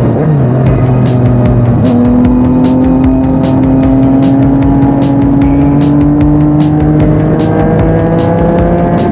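Yamaha MT-09's 847 cc three-cylinder engine through an Akrapovic shorty exhaust, running at a steady cruise. About two seconds in the throttle opens and the pitch climbs slowly for several seconds before levelling off.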